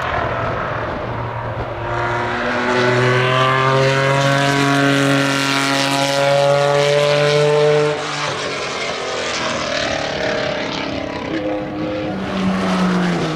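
Racing car at full throttle passing by, its engine note climbing slightly as it approaches, then falling in pitch and level as it goes past about eight seconds in. Another engine note drops in pitch near the end.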